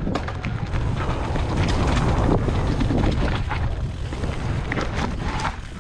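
Wind buffeting the microphone during a fast downhill ride, a steady low rumble with scattered clicks and rattles throughout.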